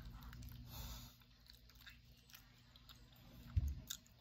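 Close-up eating sounds: a person biting and chewing a piece of chicken held in the fingers, with scattered small mouth clicks. A short low thump about three and a half seconds in.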